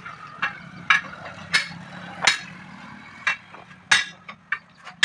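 A steel tyre bar strikes and pries at a truck tyre's bead: a series of sharp metallic knocks, six or so, under a second apart, over a faint low hum.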